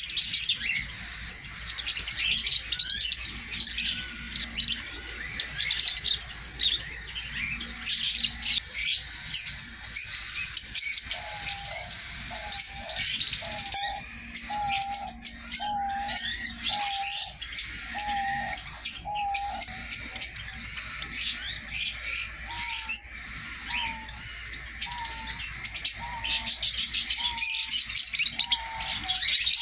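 A flock of small aviary birds chirping and twittering busily. About a third of the way in, a lower, clearer note starts repeating, one to two calls a second, with a short pause partway through.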